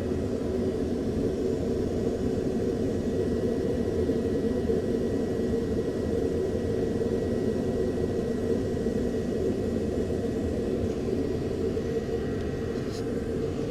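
Aircraft engine drone: a steady, unbroken low rumble with a faint constant whine above it.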